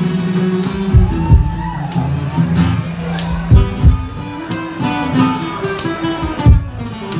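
Live acoustic rock: an acoustic guitar strummed, with a hand tambourine jingling on the beat and heavy low thumps every couple of seconds.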